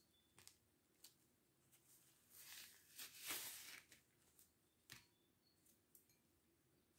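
Soft rustling and crumbling of gloved fingers rolling a small ball in a pile of crumbled powder, loudest about three seconds in, with a few light taps.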